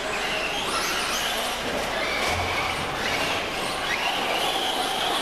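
Several small, high-revving racing engines whining together, their pitch climbing sharply about a second in and again near the end as they are revved.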